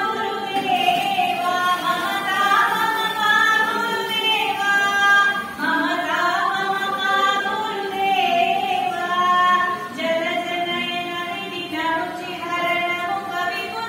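Women singing a devotional hymn together, in continuous long, gliding held notes.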